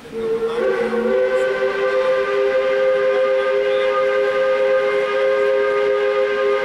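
Steam locomotive whistle blowing one long, steady blast, sounding several notes together as a chord. A lower note drops out about a second in.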